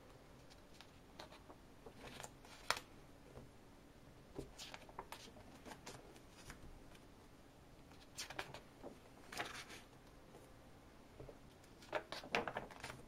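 Stiff scrapbook pages being turned by hand: paper rustling and flapping in several short spells, with light taps as the pages settle, the busiest spell near the end.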